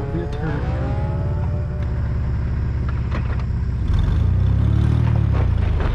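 Chevy S-10 Blazer's 4.3-litre V6 running, heard from the open door opening, then getting louder about four seconds in as it pulls away.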